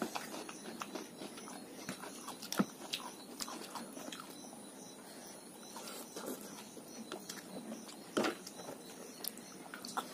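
Close-up eating sounds: chewing and slurping noodles, with a few sharp clicks of a fork and cup, the loudest about a quarter of the way in and again near the end.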